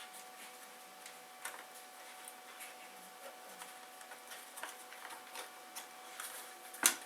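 Scattered light clicks and ticks of hands handling the plastic parts of a car instrument cluster while a gauge needle is twisted back onto its shaft, with one sharper, louder click near the end.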